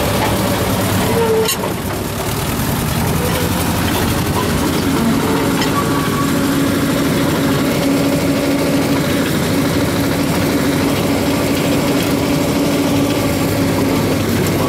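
Small tourist train's locomotive running under way, heard from its open cab: a steady engine drone mixed with wheel and rail noise. A steady higher whine comes in about five seconds in and fades near the end.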